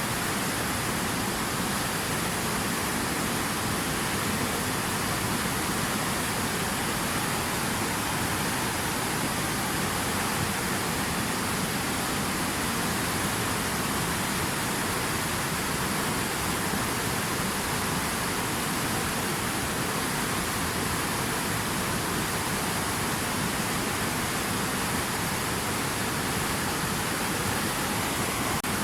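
Water rushing steadily, an even hiss with no separate splashes or drops.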